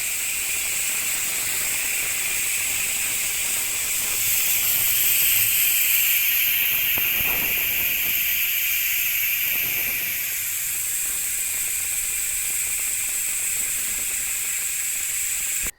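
Rear bicycle hub's freewheel ratchet buzzing steadily as the wheel spins freely: a dense, high wasp-like buzz rather than separate cricket-like clicks, the sign of a high-engagement ratchet. It swells a little about four seconds in.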